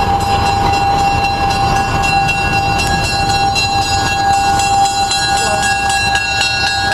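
Locomotive running as it rolls slowly along the track, a steady rumble with a steady high whine held throughout.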